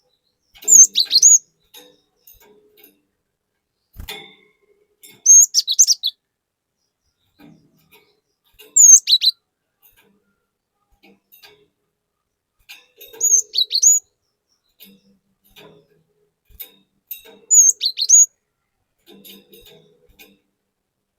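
Cinereous tit (glatik batu) singing: five short, loud phrases of sharp falling whistled notes, one about every four seconds.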